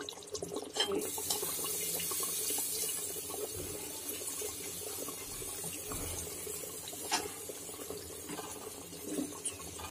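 Steady hiss of water running from a kitchen tap, starting abruptly about a second in, with a metal ladle knocking against the cooking pot a couple of times.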